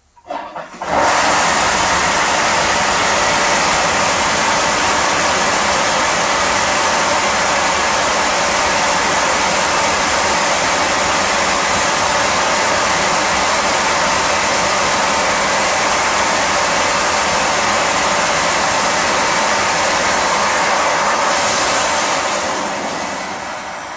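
Beer-fuelled steam rocket on a motorcycle firing: beer heated to about 250 degrees at 225 PSI flashes to steam and blasts out of the rear nozzle as a loud, steady hiss. It starts abruptly about a second in, holds for some twenty seconds, and tapers off near the end.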